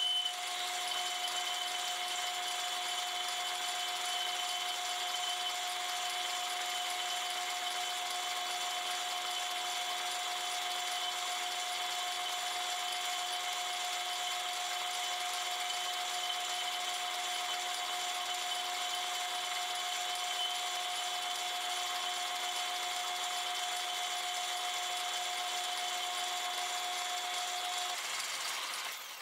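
Metal lathe running with a boring bar taking a very slow finishing pass out of the bore of a naval brass gear blank. The feed is kept slow to get rid of chatter marks and to take any spring out of the tool. The steady, even machine whine with a high ringing tone stops near the end as the bar leaves the bore, and the sound drops.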